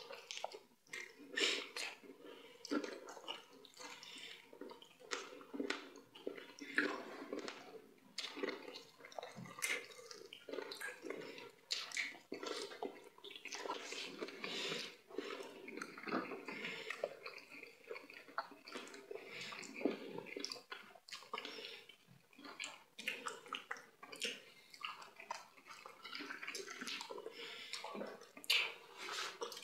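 Close-up eating sounds of fufu with peanut-palmnut soup eaten by hand: wet squelching as fingers work the dough in the soup, with chewing, sucking and lip smacks. The sounds come as quick clicks and squishes, several a second.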